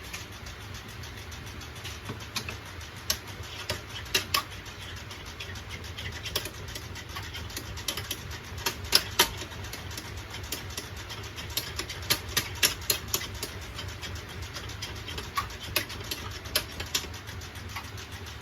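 Gas torch flame running with a steady low rush while it melts silver in a casting crucible, with irregular sharp crackles and pops in clusters.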